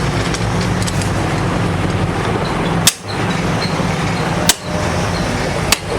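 Steady workshop machine hum with three sharp taps, about a second and a half apart.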